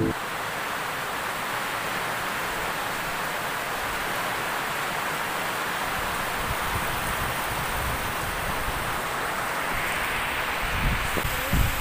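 Heavy rain falling, a steady even hiss. A couple of low bumps come near the end.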